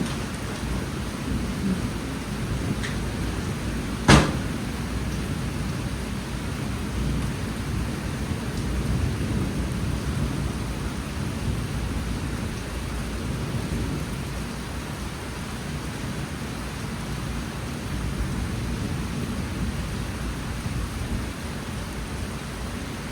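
Monsoon rain falling steadily, a dense rush strongest in the low range, with a single sharp crack about four seconds in.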